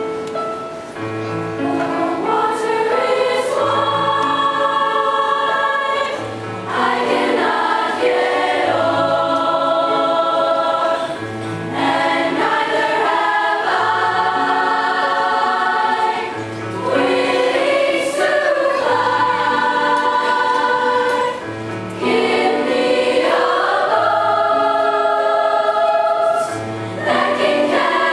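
A large youth choir of mixed voices singing a slow song in sustained harmony, in phrases with short breaths between them. A piano plays steady low notes underneath.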